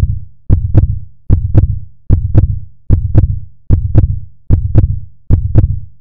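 Heartbeat sound effect: a low double thump, lub-dub, repeating steadily about every 0.8 s.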